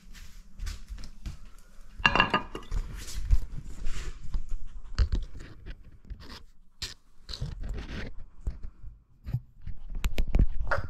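Chihuahua chewing and crunching cooked chicken off a china plate: irregular wet crunches, bites and clicks, with a louder clatter about two seconds in.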